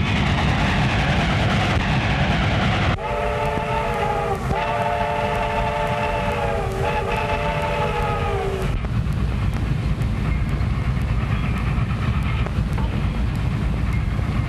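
Train running with a steady low rumble, its whistle blowing a long, loud blast from about three seconds in to nearly nine seconds, dipping in pitch twice along the way.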